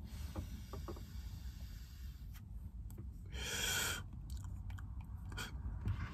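Mouth working a clogged disposable vape pen: a few faint clicks in the first second, then a short rush of breath about three and a half seconds in. The restricted, airy draw is the sign of a clogged mouthpiece.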